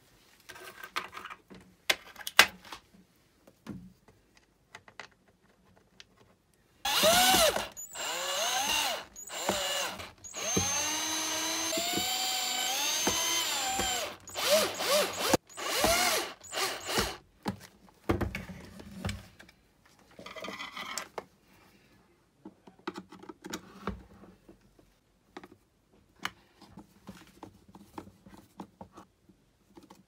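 A cordless drill-driver works the screws of a small space heater's plastic base. Its motor whirs in several short runs starting about seven seconds in, one of them lasting about four seconds, its pitch rising and falling as the screws run and seat. Light clicks and knocks from handling the plastic housing come before and after.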